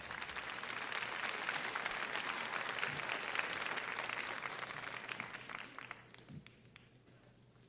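Audience applauding, swelling over the first second or so and dying away about six seconds in.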